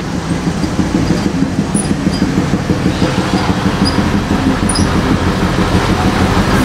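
Scania R580 truck's V8 diesel running at a slow crawl, heard inside the cab as a steady low rumble.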